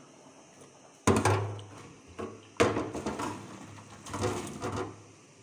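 A large aluminium cooking pot and its metal lid being handled: two sudden knocks, about a second in and about two and a half seconds in, each followed by clattering.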